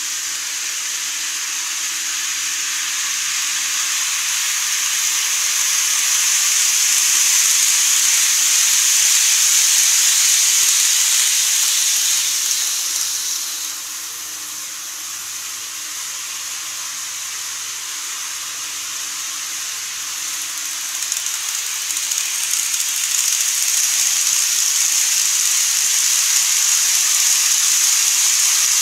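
Model train running on plastic viaduct track, its wheels and motor making a steady hiss that swells and fades as it moves around the layout. The hiss dips about halfway through, then grows louder again as the KATO 14-series coaches come by near the end.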